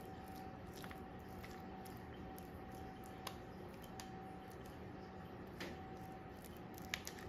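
Faint squishing of a silicone spatula pressing and smoothing raw ground-chicken meatloaf mixture in a foil-lined loaf pan, with a few light clicks as it touches the foil, over a steady low hum.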